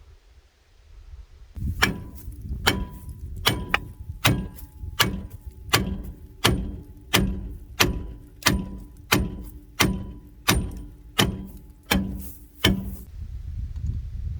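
A steady run of sharp knocks, about three every two seconds, starting abruptly about a second and a half in and stopping about a second before the end.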